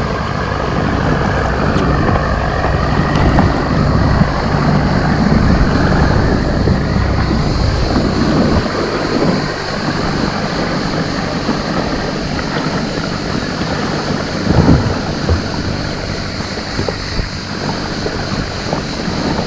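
Small boat's outboard motor running, its low hum dropping away about eight and a half seconds in, with water and wind noise on the microphone.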